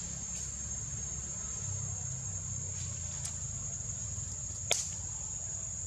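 Steady high-pitched drone of forest insects over a low rumble, with one sharp click a little before the end and a few fainter ticks.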